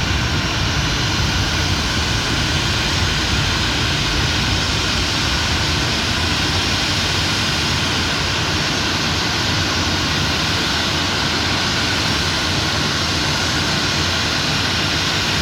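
Jet engine noise of a Boeing 737-800 taking off, its CFM56-7B turbofans at takeoff power: a steady, loud rushing sound with the deepest rumble thinning slightly in the second half.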